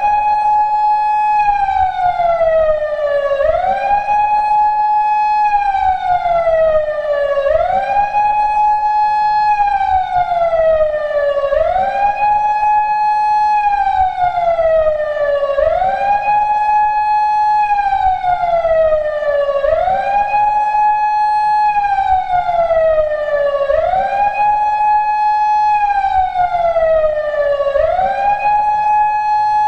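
PATLITE SAP-50 electronic siren amplifier sounding a wail: the pitch rises quickly, holds briefly at the top, then slides slowly back down, repeating about every four seconds.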